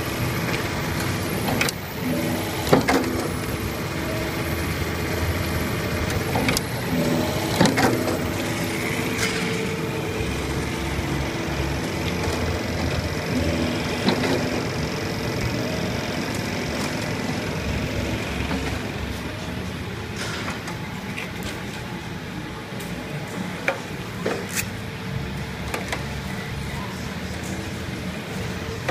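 Lollipop production-line machinery running with a steady hum and low rumble, with scattered clicks and knocks.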